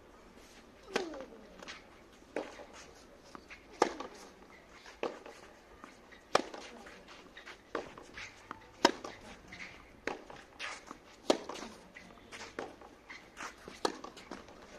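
Tennis rally on a clay court: racket strings striking the ball with a sharp crack about every second and a half, louder strikes alternating with quieter ones from the far end of the court, with ball bounces and shoe scuffs on the clay in between.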